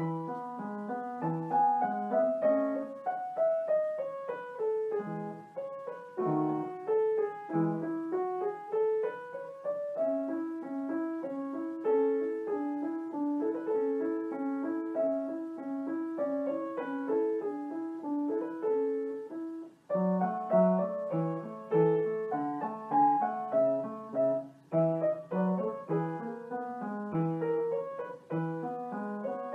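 Piano music: a gentle melody of separate struck notes, with falling and rising runs and stretches of repeated notes.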